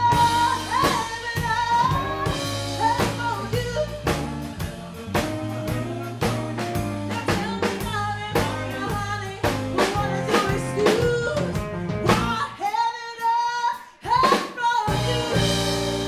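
Live band: a woman singing lead over acoustic guitar, bass and drums. About twelve seconds in the band drops out, and she holds a long, wavering note alone before the band comes back in.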